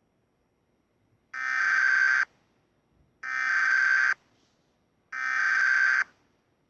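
Emergency Alert System SAME header: three bursts of digital data tones, each just under a second long and about a second apart. It is the coded start of an Emergency Action Notification, the national-emergency alert.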